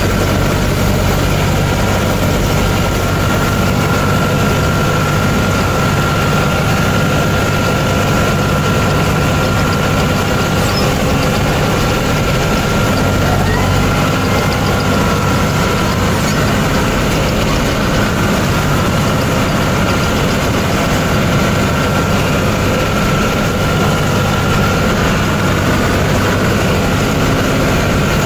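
John Deere 5310 tractor-mounted paddy harvester running steadily: a heavy diesel engine drone with a constant high whine over it.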